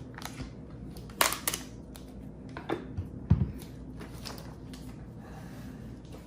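Handling noises as foam packing blocks are pulled off a robot vacuum: a handful of short clicks and scrapes, the loudest a knock about three seconds in.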